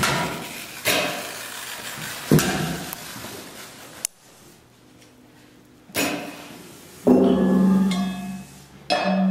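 Sparse, unmetered percussion from a small ensemble: sharp strikes and knocks at irregular gaps, each trailing off, with a short lull around the middle. About seven seconds in a low ringing tone sounds, dies away, and is struck again near the end.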